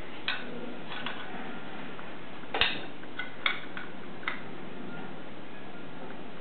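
A scattering of short, light taps and clicks as a toy knife knocks against a toy lemon, about seven in all, the loudest about two and a half seconds in, over a steady hiss.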